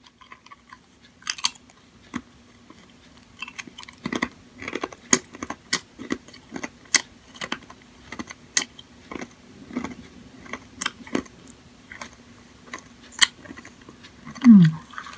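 Crunching and chewing on a crisp Japanese snack, with many irregular sharp crunches from about four seconds in. A brief low falling hum comes from the eater near the end.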